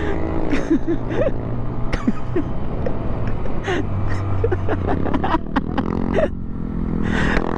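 Motorcycle engine running at low riding speed, with wind gusting over the microphone and scattered short knocks. The engine hum steps in pitch about three seconds in and again about five and a half seconds in.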